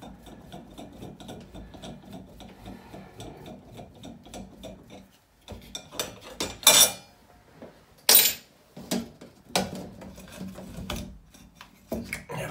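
A screwdriver grinding in the Phillips screws of a metal shower valve trim plate, a steady scratchy rasp with small clicks. About halfway through come several loud, sharp scrapes and knocks as the plate is worked loose from the valve.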